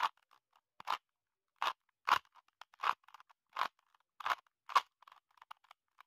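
Plastic Rubik's cube layers being turned by hand, clicking as each face snaps into place: about eight sharp clicks, roughly one every half to three-quarters of a second, with faint ticks between.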